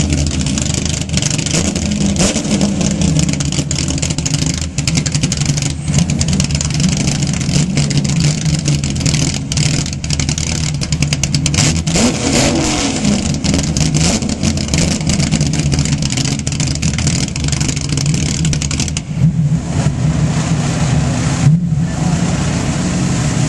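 Jaguar XJ-S touring car's V12 engine idling loudly, its note wavering slightly.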